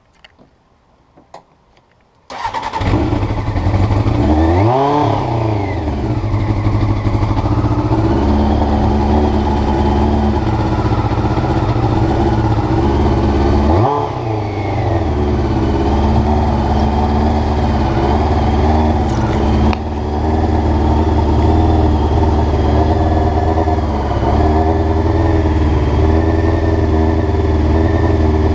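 Honda CBR motorcycle engine starting about two seconds in after a few faint clicks, blipped up twice briefly, then idling with an uneven, wavering beat: a rough idle after new carburettor float needles.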